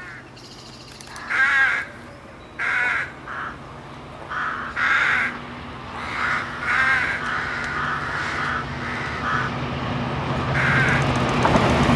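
Rooks cawing repeatedly in short separate calls. Under them the low, steady hum of an approaching Class 66 diesel locomotive's two-stroke V12 engine builds from about four seconds in and grows louder toward the end.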